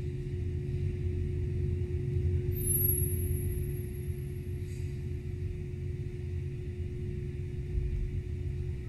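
A steady, low rumbling drone with a constant hum running through it. A thin, high whistle-like tone enters about two and a half seconds in and fades a second or so later.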